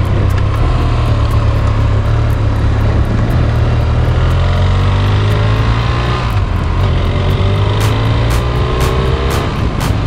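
BMW F800 ST's parallel-twin engine running under way as the motorcycle is ridden, its pitch rising in the second half as it accelerates. Wind rushes over the microphone.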